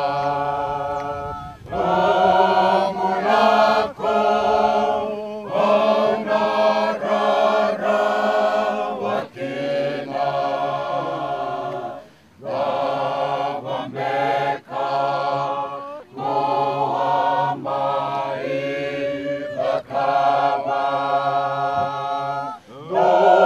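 A group of Fijian villagers, men and women together, singing unaccompanied in harmony. The song comes in phrases of a few seconds with short breaks between them.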